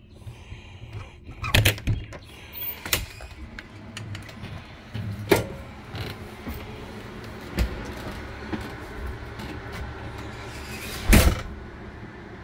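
Travel trailer entry door: the paddle-handle latch clicks and the door is worked open, followed by scattered knocks and thumps. The loudest knocks come about two seconds in and again near the end.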